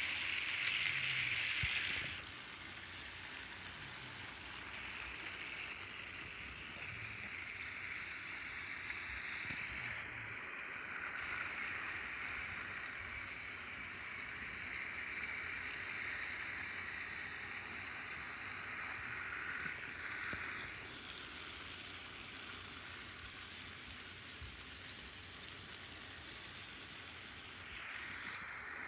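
Several battery-powered TrackMaster toy trains running on plastic track, a steady whirring hiss of their small motors and gearboxes with wheels rattling over the track joints; louder for the first couple of seconds, then steadier and a little quieter.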